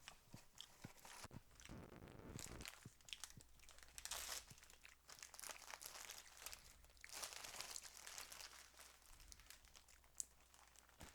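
Faint, intermittent crinkling of a plastic shredded-cheese bag being handled, with a few small clicks.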